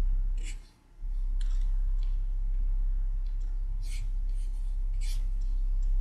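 Steady low electrical hum, cutting out briefly just under a second in, with about four sharp computer mouse clicks spread through.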